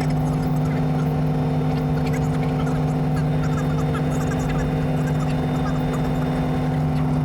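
Robinson R44 Raven I helicopter's six-cylinder Lycoming piston engine and rotors running at a steady, even drone.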